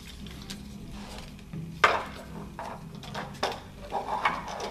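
Plywood parts of a wooden mechanical tractor model clicking and knocking as it is handled and set down on a table, with the loudest knock a little under two seconds in.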